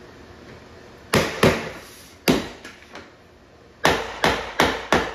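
Hammer knocking a block against the end of a vinyl plank to seat its joint: two strikes about a second in, one more near two seconds, then four quicker strikes near the end.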